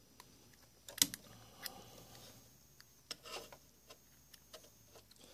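Light metallic clicks and taps from a small Panasonic DC motor's can and end cap being handled and fitted together, the cap being lined up with the screw holes; a sharp click about a second in is the loudest.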